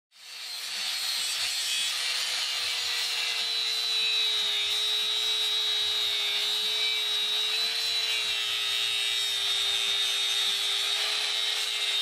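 Corded angle grinder cutting into a steel flat bar. The motor runs at a steady high whine over a harsh grinding hiss, with the pitch sagging slightly as the disc bites into the metal.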